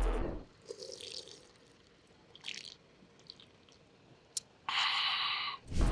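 Someone drinking from a soft-drink can: faint sips and swallows, a sharp click about four seconds in, then a louder hissing sound for about a second near the end.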